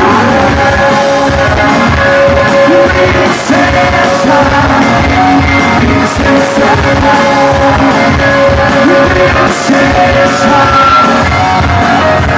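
Rock band playing live, very loud through large PA speakers: guitars and drums, the sound harsh and overloaded from being right in front of the speakers.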